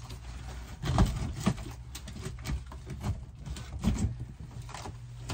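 Wooden board knocking and scraping against the camper's wall framing as it is worked into place by hand, with a few sharp knocks about a second in, at a second and a half, and near the four-second mark.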